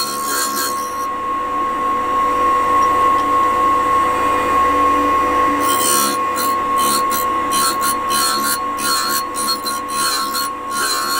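Deckel-clone universal tool and cutter grinder running with a steady high whine while its diamond wheel grinds the point of a 13 mm HSS drill bit in repeated passes. The hissing grind is heard in the first second, stops, and returns in short broken bursts from about six seconds in.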